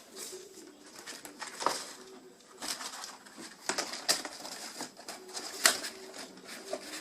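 Handling noise of a folder being turned over and felt by hand: irregular rustling with several sharp clicks, the loudest about one and a half, four and five and a half seconds in.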